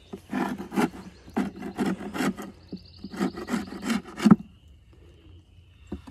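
Metal hive tool scraping across the wooden frames and box edge of a beehive: a quick series of rasping strokes, a few each second, that stop about four and a half seconds in.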